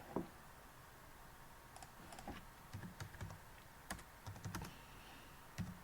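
Computer keyboard typing: quiet, scattered keystrokes, sparse at first, then a few quick runs of key clicks.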